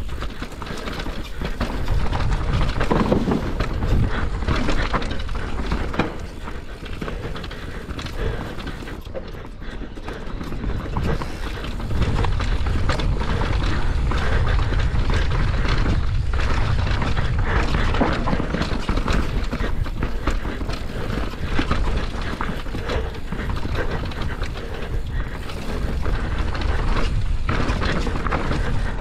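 Mountain bike descending a rough dirt trail: wind rushing over the camera microphone, tyre rumble, and the rattle and clatter of the bike's chain and frame over bumps. It gets louder about two seconds in and again about twelve seconds in, as the speed picks up.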